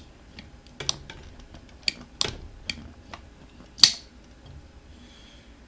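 Metal hand tools clicking and clinking against a scooter wheel rim while a stubborn tire is being worked on, in half a dozen irregular sharp clicks, the loudest about four seconds in.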